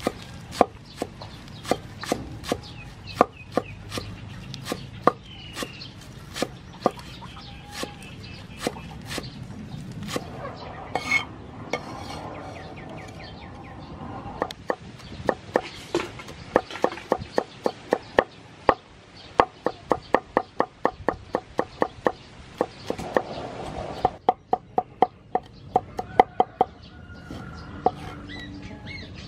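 Steel cleaver chopping on a wooden cutting board: a run of sharp knocks as green onions are sliced and then garlic is minced, the strokes quickening to a fast run near the end.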